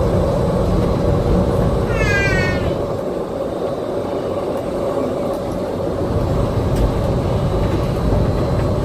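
Disneyland Monorail Mark VII running, a steady cabin rumble with a constant hum. About two seconds in, a brief high-pitched squeal or cry rises over it for under a second.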